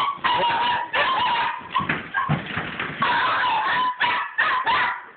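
Small dog yapping in rapid, repeated high-pitched barks, about ten in a row, excited for the tennis ball it is being teased with.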